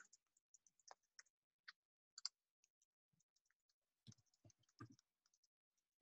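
Faint, irregular clicks of computer keyboard keys being typed, a few in quicker succession about four to five seconds in.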